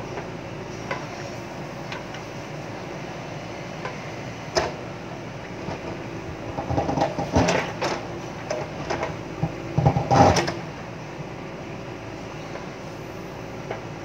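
JCB backhoe loader's diesel engine running steadily while the backhoe digs, with a knock at about four and a half seconds and clusters of knocks and clanks from about six to ten and a half seconds in, loudest near ten seconds.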